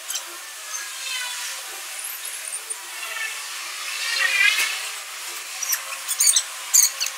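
Bolt on a copper ground clamp being tightened with a hand tool: a pitched rasping about four seconds in, then a few sharp metal clicks near the end.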